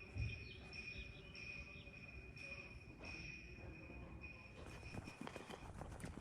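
Insects chirping in steady high-pitched trills that switch on and off every second or so, faint. A short low thump comes just after the start, and a run of quick clicks begins near the end.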